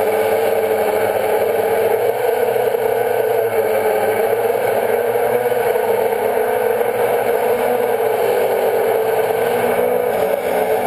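Quadcopter's electric motors and propellers whining steadily, heard close up from the drone's on-board camera, the pitch wavering slightly.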